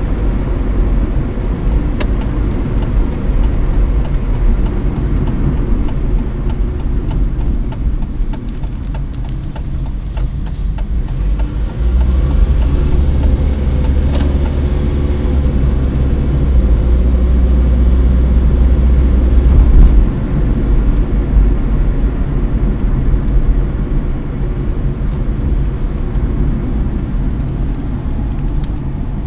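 Car driving at road speed heard from inside the cabin: steady engine and tyre rumble. A patter of light rapid ticks runs for several seconds near the start, and the deep rumble swells for several seconds in the middle.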